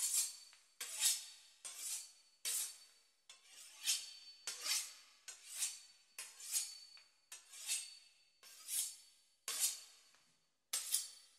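Repeated scraping strokes of a metal kitchen utensil, about one a second, each starting sharply and fading quickly, some with a faint metallic ring.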